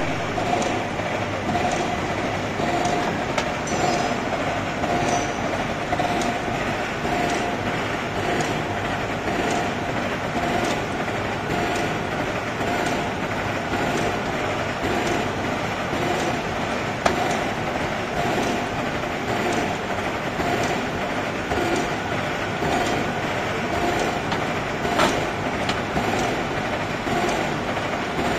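Heavy screw-cutting lathe running, its big faceplate spindle turning with a steady gear-train drone. A whine pulses about once a second, with a few sharp clicks from the machine.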